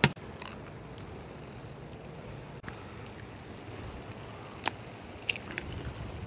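Shakshuka sauce simmering quietly in a cast-iron skillet with a low, steady bubbling. There is a sharp click at the start and a few more sharp clicks near the end.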